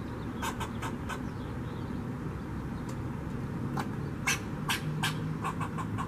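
Fox squirrel scolding with a series of short, sharp alarm barks. There is a quick run of calls soon after the start and a louder run past the middle.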